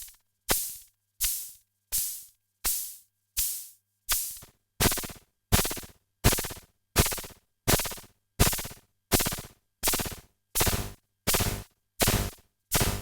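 EDP Wasp monophonic analog synthesizer playing a repeating short percussive note, about three every two seconds, each hit starting sharply with a bright hiss and dying away fast. The hits grow louder about halfway through.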